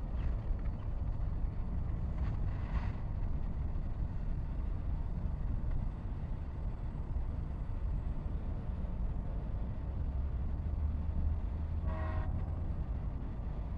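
Freight train rumbling steadily, unseen on the tracks. A short horn toot sounds near the end.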